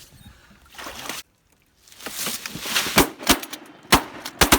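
Shotgun shots fired at ducks flying over the blind: four sharp reports in the last second and a half, the first two close together, over a rushing noise bed.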